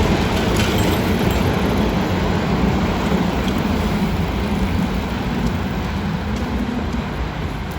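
Electric train's rumble slowly fading as it runs away from the level crossing.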